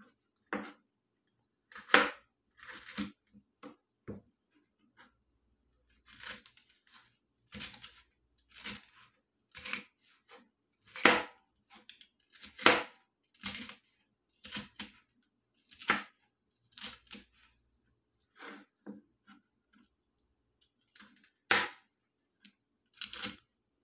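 Chef's knife slicing a green bell pepper on a plastic cutting board: about twenty separate short cuts at an uneven, unhurried pace, with a longer pause shortly before the end.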